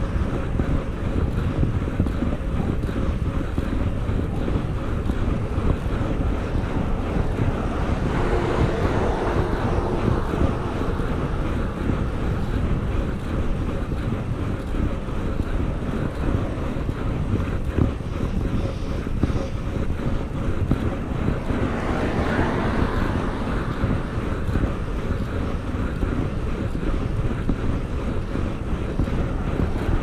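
Steady wind rush buffeting the microphone of a cyclist riding on the road, with two brief swells of louder noise about a third of the way in and again about three quarters through.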